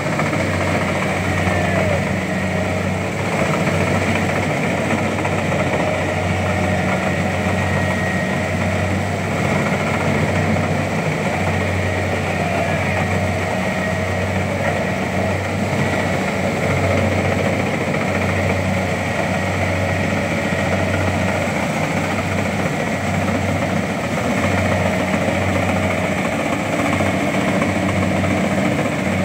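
Rice harvesting machine's engine running steadily with a low drone, holding the same speed throughout.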